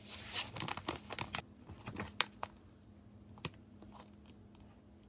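Paper and plastic being handled at a craft table: soft rustling and a few sharp clicks, busiest in the first second and a half and then only now and then.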